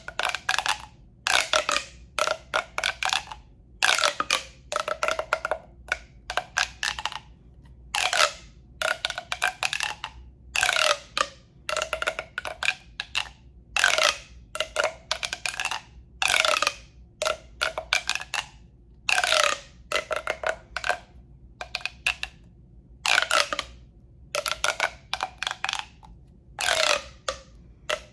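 Hollow, resonant tapping on a tube for relaxation sounds: quick clusters of sharp taps, one cluster every second or two, with short pauses between.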